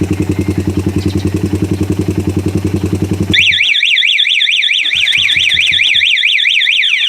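Motorcycle engine idling with an even pulse, cut off about three and a half seconds in by the Cyclone C-11 alarm's remote engine-off, the anti-snatch function. The alarm siren starts as the engine dies: a loud high tone sweeping rapidly up and down several times a second.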